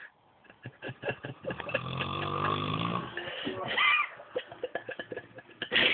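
A sleeping man snoring: one long snore of about two seconds starting a second and a half in, followed by a short higher sound and quieter breathing noises.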